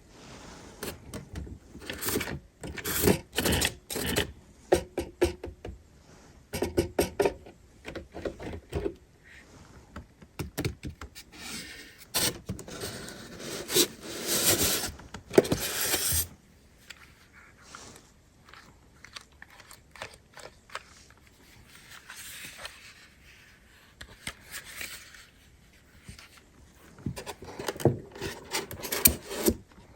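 Packaging of a toy RC car being handled and opened: irregular scraping and clicking. The handling is busiest in the first half, goes quieter, then picks up again near the end.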